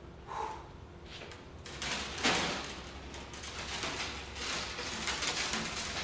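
Irregular scraping and rustling of hand work on a light aircraft's tail fin as parts are handled and worked loose, with a short squeak just after the start and a louder scrape about two seconds in.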